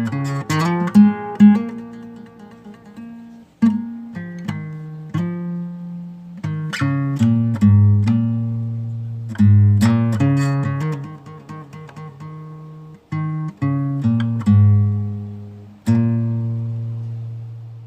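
Instrumental acoustic guitar strumming chords. The last chord, struck near the end, rings out and fades.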